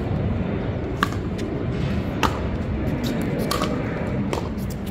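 Pickleball rally: a paddle striking the plastic ball, four sharp pops roughly a second apart, over steady background noise.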